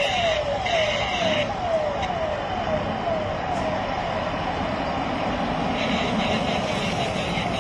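Siren of an approaching convoy escort: a falling tone repeated about twice a second, fading away after about four seconds. Underneath is a steady rush of road traffic as the convoy's cars come closer.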